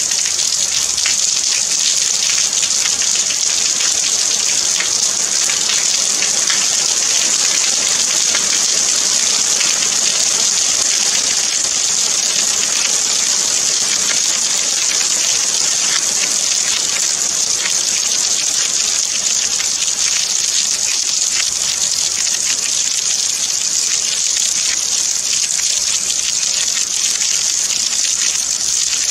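Steady rain falling: an even, high hiss of many drops, with no change in strength.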